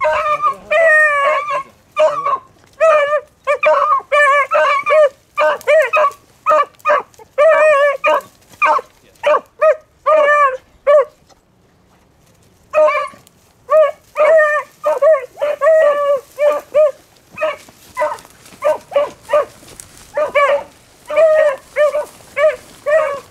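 Beagles giving tongue on a rabbit track: a rapid string of short, loud, high barks, repeated over and over, with a break of about a second and a half a little before halfway before the barking picks up again.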